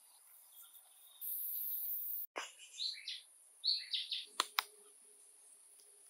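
Forest ambience: a steady high insect drone, a loud hissing buzz for about a second that cuts off abruptly, then several quick bird chirps and two sharp clicks.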